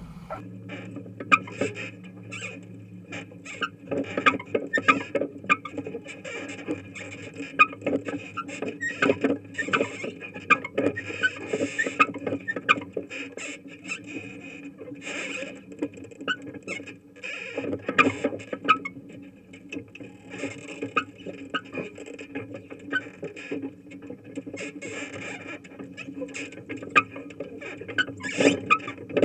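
Running gear of a Jamesway 8500-gallon manure tanker rolling over snow: many irregular clicks and rattles over a steady low rumble.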